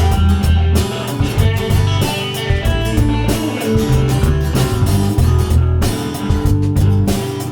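Instrumental rock music: electric guitar over bass and a drum kit, with no singing.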